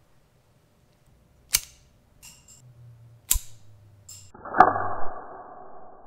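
A 3D-printed mini crossbow is handled, giving two sharp clicks and a few lighter ones. About four and a half seconds in it is fired, with a loud snap followed by a muffled rattle lasting under two seconds.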